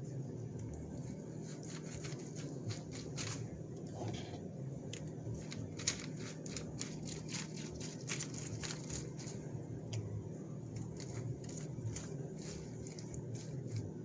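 A steady low hum with light clicks and taps scattered through it, and one sharper tap about six seconds in.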